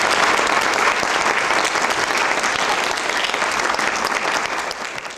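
Audience clapping steadily in applause, dying down near the end.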